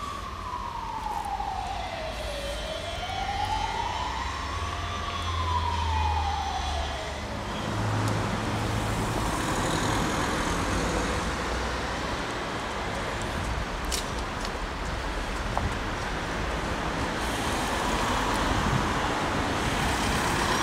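An emergency-vehicle siren wailing slowly up and down, a few seconds to each rise and fall, which fades out about seven seconds in. Steady street traffic noise takes over for the rest.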